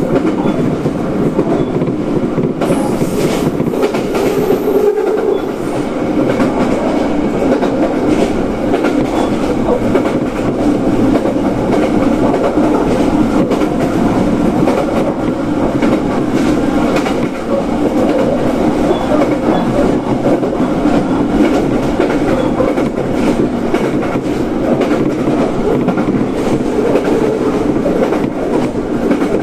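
Running noise of a local train heard from inside the passenger car at speed: a steady rumble of wheels on rail with the clickety-clack of rail joints.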